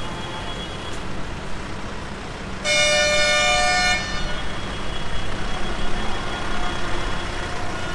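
Tractors' diesel engines running in a slow-moving column, with one horn blast of a little over a second, a high, steady multi-tone honk, nearly three seconds in.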